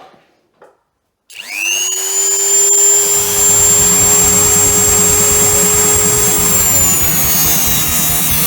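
Angle grinder switched on: its motor whine climbs quickly to a steady high pitch, and about two seconds later a rough, pulsing low noise joins it. The whine sags a little near the end.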